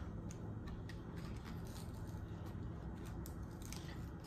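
Faint, scattered clicks and crinkles of a small toy blind pack being handled and worked open by hand.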